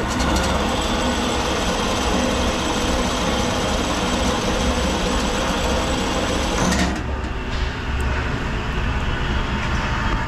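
The Gardner double-disc grinder's powered upper-head feed is running, its motor and gearing driving the head while the up/down handwheel spins. It cuts off about seven seconds in, leaving a quieter steady machine hum.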